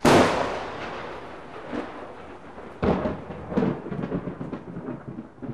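Logo-intro sound effect: a loud boom at the start that fades away over about two seconds, then a second boom just under three seconds in, followed by a string of quicker, lighter hits.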